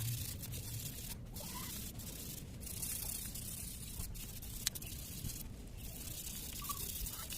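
Wire brush scrubbing a dirty motorcycle cylinder block: a steady scratchy rasp with a few short breaks and one sharp click about halfway through.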